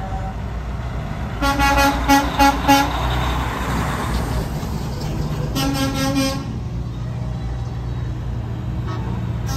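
A semi-truck's air horn sounds a quick series of short blasts, then one longer blast about six seconds in, over the low running of a truck's diesel engine and the rush of its tyres as it passes close.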